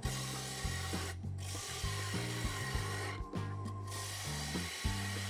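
Turning tool cutting across the face of a spinning maple bowl blank on a wood lathe, a steady rasping scrape of wood being trued up, with background music carrying a stepping bass line.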